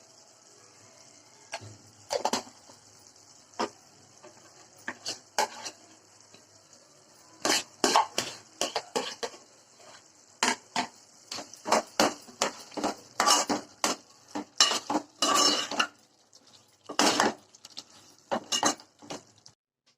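A metal spoon clinking and scraping against a cooking pot, in irregular strikes that come thick and fast through the middle, over a steady high hiss.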